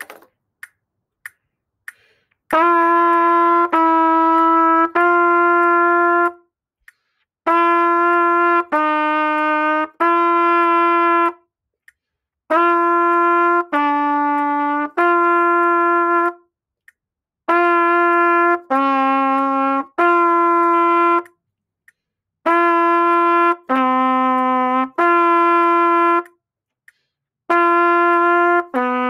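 Four faint metronome count-in clicks, then a trumpet playing a long-tone warm-up: sustained notes in groups of three, each held just over a second, with a short rest after each group. The middle note of each group steps lower from one group to the next while the outer notes stay on the same pitch.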